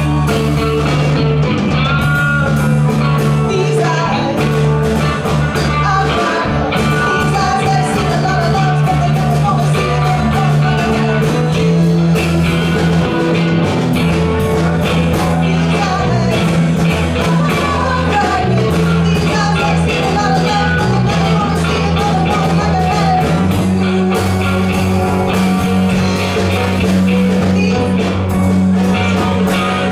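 Live rock band playing a song: electric guitar, bass and drums with a singer's voice over them, at a steady level.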